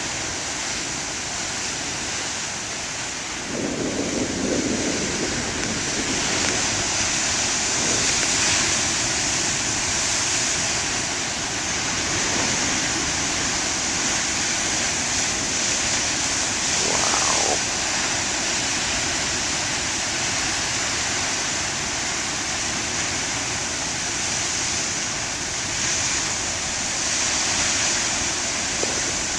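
Large ocean waves breaking on the shore: a steady rushing noise of surf, swelling a little about four seconds in.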